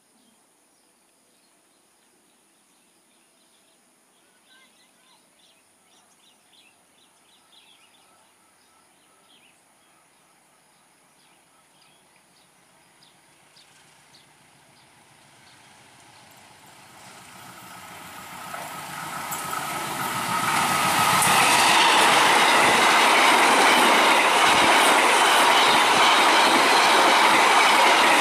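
KAI passenger train hauled by a diesel locomotive approaching at speed: faint at first, growing steadily louder through the middle, then passing close by in a loud, steady rush of wheels on rails for the last several seconds.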